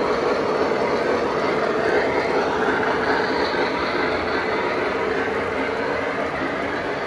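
Model train running along the layout track, a steam locomotive pulling a string of boxcars: a steady noise of wheels and running gear on the rails that eases a little toward the end as the train moves off.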